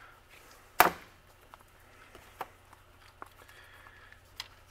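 Hand tools set down on a metal workbench: one sharp clack about a second in as a steel putty knife and plastic spreader are laid down, then a few faint light taps.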